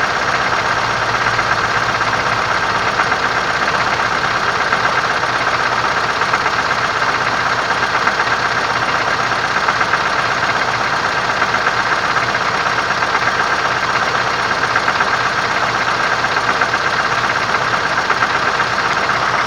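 MAZ-4370 truck's diesel engine idling steadily, with a fast, even knock that points to a worn gearbox.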